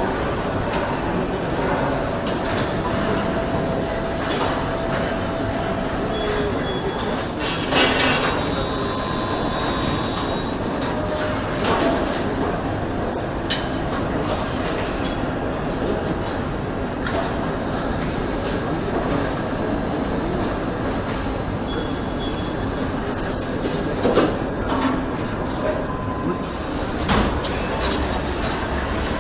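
Car assembly line machinery running steadily, with scattered clicks and knocks. A high-pitched whine comes in twice: for a few seconds near the 8-second mark, and again for about seven seconds from the middle.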